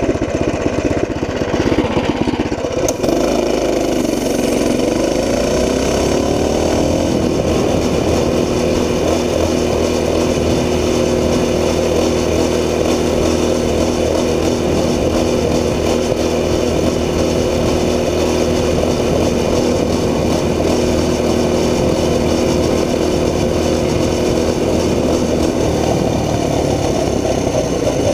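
Tillotson 212 Hemi single-cylinder engine on a mini bike under full throttle. It climbs in pitch for the first several seconds as the bike accelerates, then holds a steady note at the governor-limited top speed of about 29 mph, easing slightly near the end.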